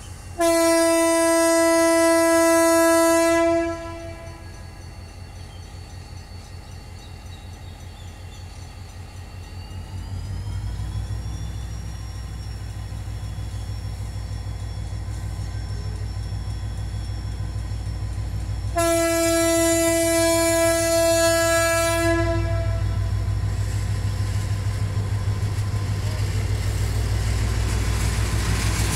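GM GT22CW-3 diesel locomotive sounding its air horn in two blasts of about three seconds each, near the start and again about 19 seconds in. Between the blasts its diesel engine rumbles, growing louder as it approaches, with a rising whine about ten seconds in.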